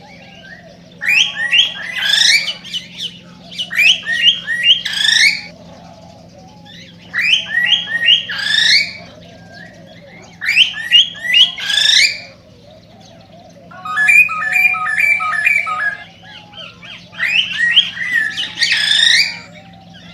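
Male cockatiel singing its excited breeding warble: six phrases of quick repeated chirps and rising whistles, separated by short pauses, over a faint steady hum.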